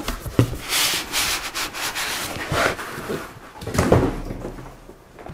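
Cardboard and foam packing rubbing and scraping as an eGPU enclosure in thick foam end caps is slid and lifted out of its shipping box, with a couple of knocks.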